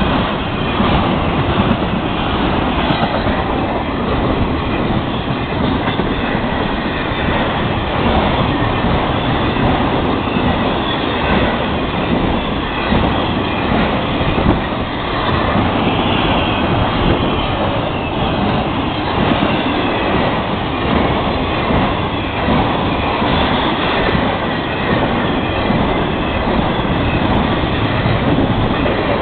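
Florida East Coast Railway intermodal freight train rolling past: the steady rumble and clatter of double-stack container cars and trailer flatcars on the rails.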